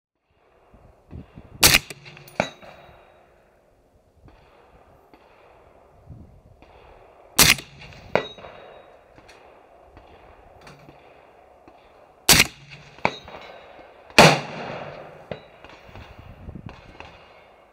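Four shots from a Wilson Combat Super Sniper rifle in 6.5 Creedmoor fitted with a Dead Air Sandman L suppressor, the last two about two seconds apart. Most are followed, under a second later, by the fainter clang of the bullet hitting a steel target downrange.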